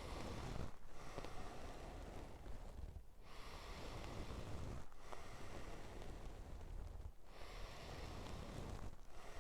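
A man breathing deeply and steadily in a guided breathwork round, drawing full breaths in and out with a short break about every two seconds.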